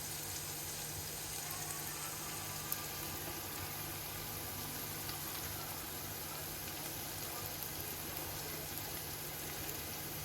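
Food cooking in a pot on the stove, giving a steady hiss with a low hum underneath and a single click a little under three seconds in.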